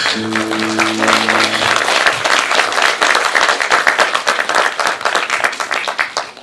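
Audience applauding, dense clapping that thins out near the end, with a held musical chord under the first two seconds.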